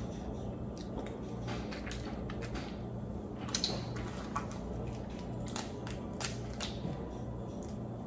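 Boiled crawfish shells cracking and crackling as they are peeled apart by hand, a scattering of sharp snaps, the loudest about three and a half seconds in.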